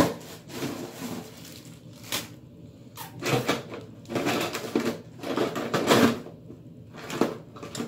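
Rummaging through a bag for a hair pin: irregular bursts of rustling and clatter with a few sharp knocks.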